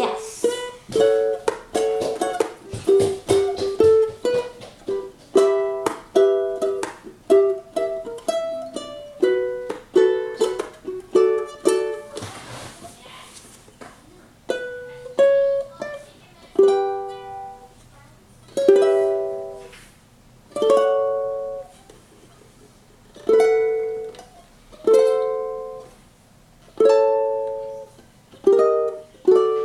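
Collings UT-1 mahogany tenor ukulele with Aquila strings, played as quick plucked melody notes and chords for the first half, then slow single chords about every two seconds, each left to ring out.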